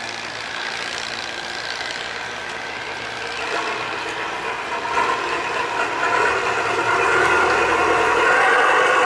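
Cargo barge's engine running steadily, growing louder from about halfway through.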